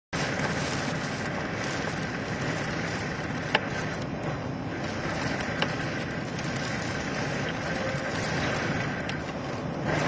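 Strong nor'easter wind, about 40 mph, buffeting the microphone over rough, whitecapped sea: a steady rushing noise. Two sharp clicks cut through it, about three and a half and five and a half seconds in.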